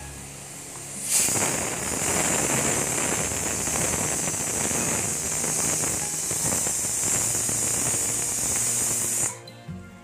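Dhuska batter deep-frying in hot oil in a kadhai, crackling and sizzling loudly and densely. The sound starts suddenly about a second in and cuts off shortly before the end, with faint music on either side.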